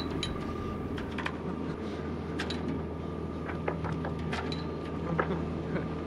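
A boat's engine runs with a steady low hum, and scattered light clicks and knocks sound on board.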